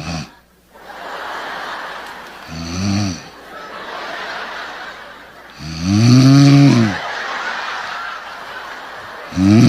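A person imitating a man's loud snoring: soft breathy hissing broken by three loud, throaty snore blasts about three seconds apart, the second and third the loudest.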